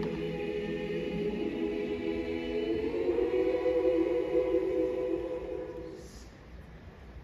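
Choir singing a sustained chord, many voices holding notes in harmony. It swells and then dies away about six seconds in.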